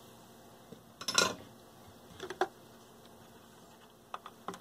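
Small metallic clicks and clatter of hand tools being handled over an amplifier circuit board, the loudest a brief rattle about a second in, with a few sharp clicks near the end as flush cutters close on the soldered component leads.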